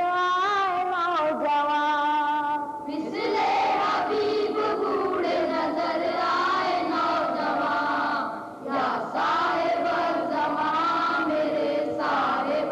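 Boys' choir singing a devotional manqabat in unison. A single voice sings a wavering, held line for about the first three seconds, then the whole group comes in, with a brief breath pause a little past the middle.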